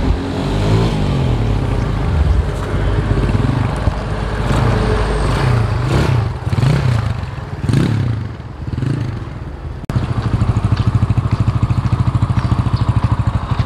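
Yamaha Scorpio Z motorcycle's single-cylinder four-stroke engine revving up and down as the bike is ridden, rising and falling in pitch several times. About ten seconds in, the sound cuts to the engine idling with a steady, even pulse.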